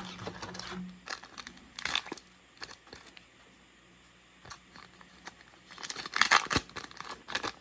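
A trading-card booster pack's foil wrapper crinkling and being torn open, in several short rustling bursts, the loudest cluster near the end.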